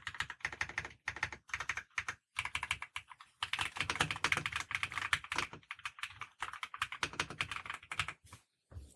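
Typing on an ELMWAY KZZI K68 Pro mechanical keyboard with linear switches: quick keystrokes in continuous runs with a few brief pauses, stopping about a second before the end.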